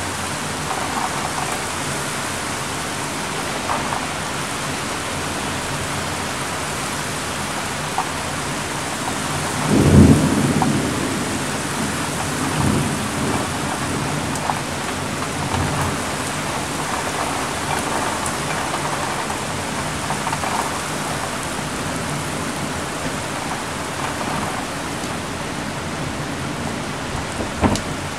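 Heavy rain pouring steadily in a summer thunderstorm, with a loud rumble of thunder about ten seconds in that dies away over a couple of seconds, followed by fainter rumbles.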